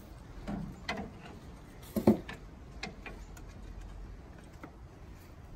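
A few scattered metallic clicks and knocks, the loudest about two seconds in, as a long steel pry bar levers the bus's Detroit Diesel engine along its wooden cradle.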